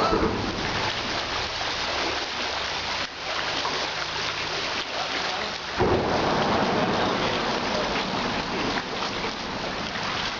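Wind buffeting the camera's microphone: a loud, rushing, rumbling noise that rises and falls in gusts.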